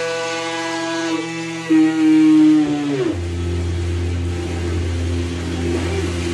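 Small 770-size DC drill motor driving an RC boat jet drive: a steady high whine that drops in pitch about three seconds in as the pump loads up. It then settles into a deeper steady hum with the rush of water churned by the jet.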